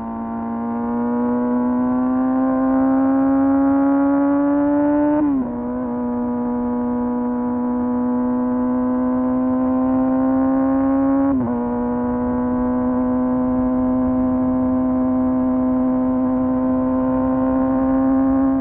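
Motorcycle engine pulling under load, its pitch climbing slowly through each gear, with quick upshifts about 5 seconds in and again about 11 seconds in, where the pitch drops sharply and builds again.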